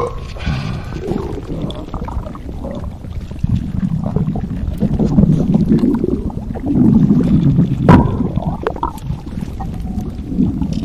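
A person's stomach growling: long, irregular low gurgling rumbles that swell and fade, loudest in the middle and latter part, with a sharp little pop about eight seconds in.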